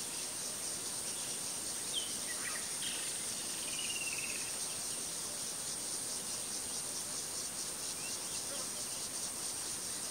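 Steady, high insect chorus with a fast pulsing trill, over which a few short bird chirps and a brief warbling call come about two to four seconds in.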